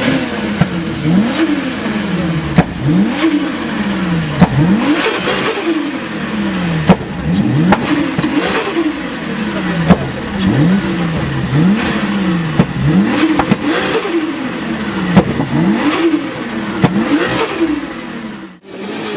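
Turbocharged car engine blipped over and over, about once every second and a half, each rev shooting up and falling back as the throttle closes, with the turbo fluttering on lift-off and sharp cracks at some of the blips. Near the end the sound cuts off abruptly and a steadier engine sound follows.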